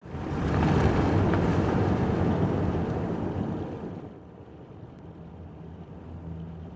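A road vehicle driving past: a loud rushing noise that swells up at once and fades away after about four seconds.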